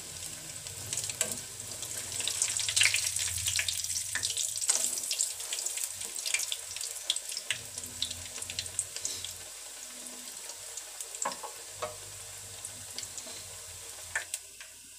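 Bread chops deep-frying in hot oil in a kadai: a steady sizzle with many small crackles and pops, busiest in the first half and settling down later.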